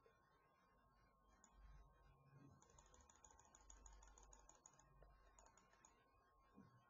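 Near silence: faint, scattered clicking at a computer, over a thin steady whine.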